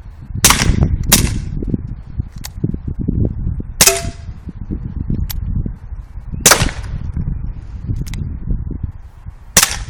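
Dan Wesson 8-inch 4.5mm (.177) CO2 BB revolver firing five shots at an uneven pace, the first two close together, each a sharp crack. Fainter clicks fall between the shots.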